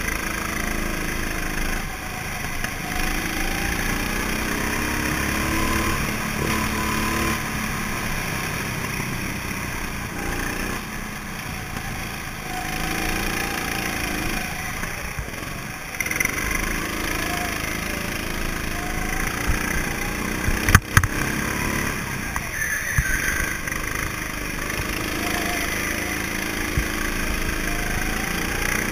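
Go-kart engines running at race pace, their pitch rising and falling over and over as the karts accelerate and back off. A sharp knock about three-quarters of the way through.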